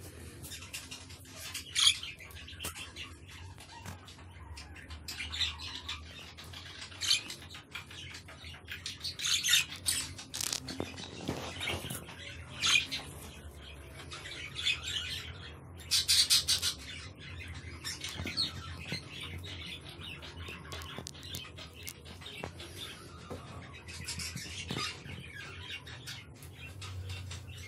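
Several blue budgerigars chirping and chattering in irregular bursts, with short sharp calls, some much louder, scattered throughout.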